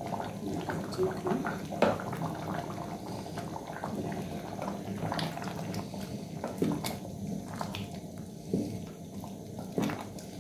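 Wooden spoon stirring a thick stew of peas, potatoes and meat in an aluminium pot, the liquid sloshing, with the spoon knocking against the pot now and then.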